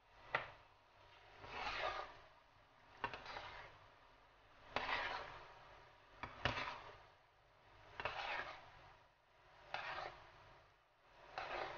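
A cooking utensil scraping and knocking against a pan of latik, coconut curds cooking down in their oil, as it is stirred through for the ginger pieces. About seven slow strokes, roughly one every one and a half seconds, each starting with a click and then a short rasp.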